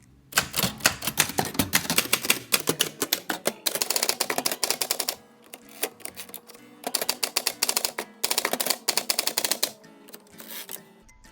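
Typewriter keys clacking in fast bursts of typing, with short pauses between runs and a few scattered strokes near the end.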